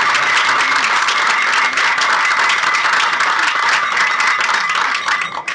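Audience applauding: a dense mass of many hands clapping that starts to thin out near the end.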